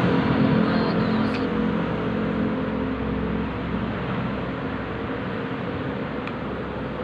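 Road traffic: a motor vehicle's engine hum close by that fades away over the first few seconds, over a steady rush of traffic noise.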